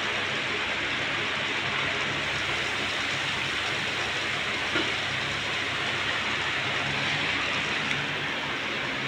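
Steady hiss of workshop background noise with a faint low hum underneath and one light tick about five seconds in; the engine itself is not running.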